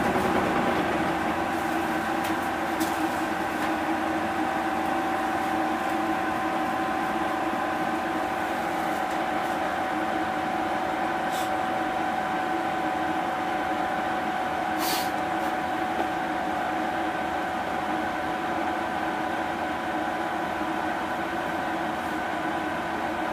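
Mitsubishi Fuso Aero Star (2PG-MP38FK) city bus heard from inside the cabin, its engine running at a steady, unchanging note over a low hum, with a few faint clicks.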